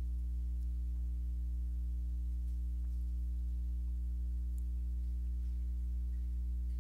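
Steady low electrical hum with a stack of overtones, unchanging throughout, in the audio feed.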